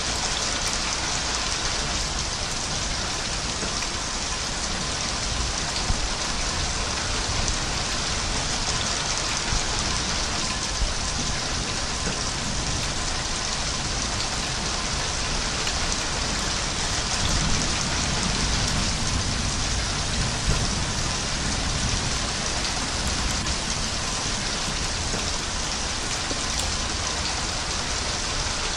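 Steady heavy rain, an even hiss of falling drops, with a low rumble swelling briefly a little past the middle.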